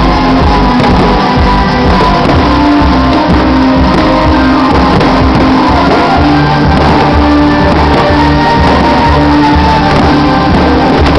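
Loud music with held notes over a steady low beat.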